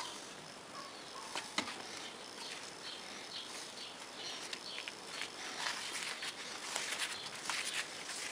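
Small metallic clicks and scraping from hand work on a steel plate: a cutting-oil bottle and a T-handle tap wrench being handled, then the hand tap cutting thread in a hole, with a busier run of crackling clicks in the last few seconds.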